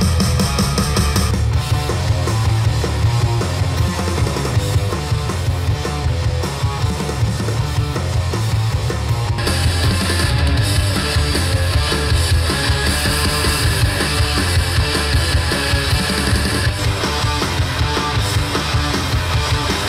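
Rock music with guitar and drums playing in turn through pairs of Soviet hi-fi loudspeakers, among them the Estonia and Radiotehnika S-90. The tone changes abruptly about a second in, again near halfway and once more near the end, as playback switches from one speaker pair to the next.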